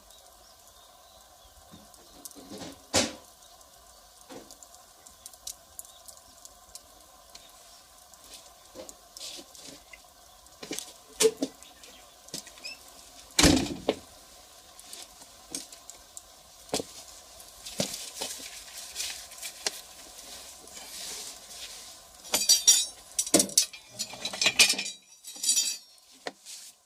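Firewood fire crackling, with irregular sharp pops and snaps. A few loud pops stand out, and a quick run of crackles comes near the end.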